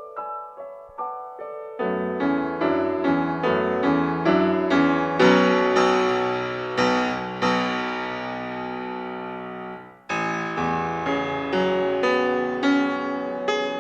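Background piano music: a light line of single high notes, joined by lower chords about two seconds in, with a brief break near ten seconds before the playing resumes.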